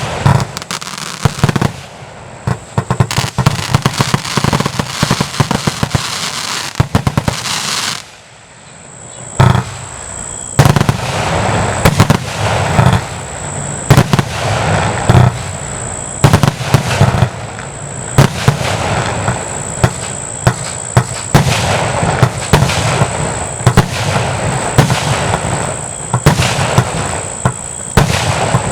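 240-shot compound firework cake firing: sharp bangs in quick succession over a continuous crackling hiss, with a short lull about eight seconds in before the shots pick up again and run on rapidly.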